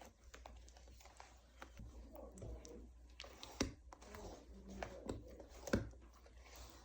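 Handmade body polish (body scrub) being worked by hand: irregular soft squishing and grainy scraping with sharp clicks, the loudest about three and a half and nearly six seconds in.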